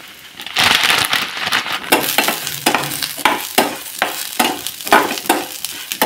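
Dry vermicelli roasting in ghee in a steel pan: a light sizzle, with a spatula scraping and stirring the strands about three times a second.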